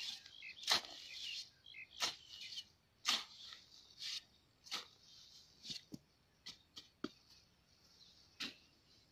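Long-handled hoe chopping into damp soil: about ten sharp strikes at irregular intervals, with a scrape of loosened dirt between them.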